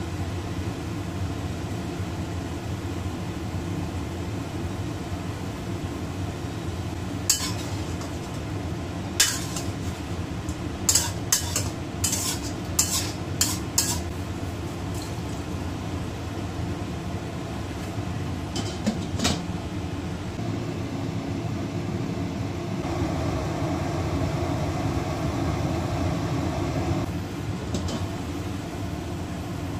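Metal spatula scraping and clinking against a wok while stir-frying mushrooms, tofu and shrimp, in scattered clusters of sharp clicks, mostly around the middle, over a steady low hum.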